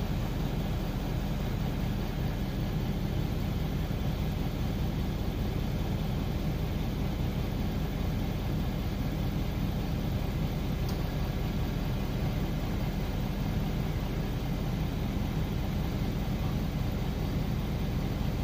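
A truck engine idling steadily, a low even hum.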